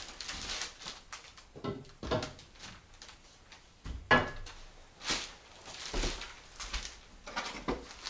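Footsteps and scattered knocks of a person moving about a bare wooden room, handling a long spirit level and boards, with a sharp knock about four seconds in the loudest.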